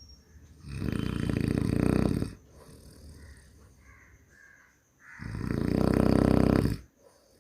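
A person snoring: two long snores about four and a half seconds apart, each lasting nearly two seconds.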